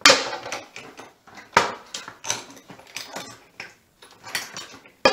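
Loose toilet seat being wobbled by hand on its metal hinge posts. Its plastic hinges knock and clack against the posts and the ceramic bowl, about six sharp knocks at uneven intervals, because its hidden hinge fixings have worked loose.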